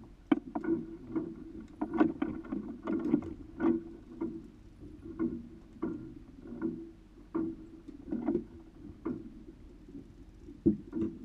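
Water slapping and knocking against a small polyethylene boat's hull in irregular knocks and splashes, about one or two a second.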